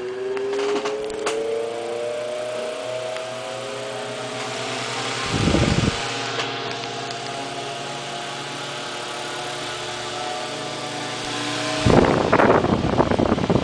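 Vintage Eskimo model 10103 electric desk fan running: its motor hum rises in pitch over the first few seconds as it comes up to speed, then holds steady. The fan's air blast buffets the microphone twice, briefly about five and a half seconds in and more heavily near the end.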